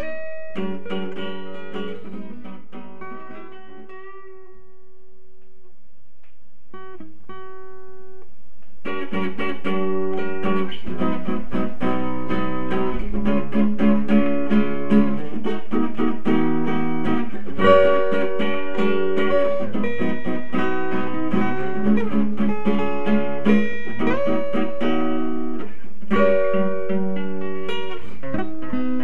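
Background music played on guitar: a sparse, quieter passage at first, then a fuller, louder passage from about nine seconds in.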